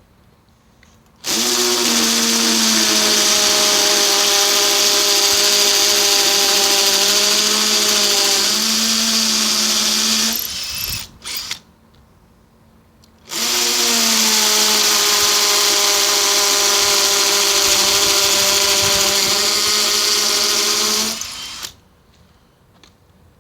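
Hammer drill with a 6mm masonry bit drilling into brick: two steady runs of about nine seconds each, one for each fixing hole, with a short pause between them.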